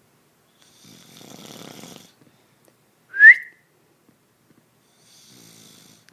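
A person snoring: a rough snore about a second in, then a short, loud whistle rising in pitch on the breath out, then a fainter snore near the end.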